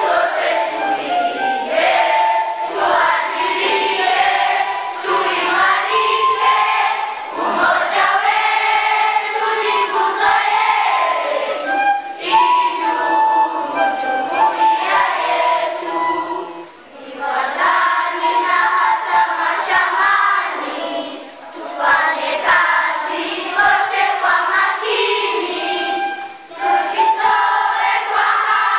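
A group of children singing together in chorus, a song with many voices and a steady melodic line that pauses briefly twice.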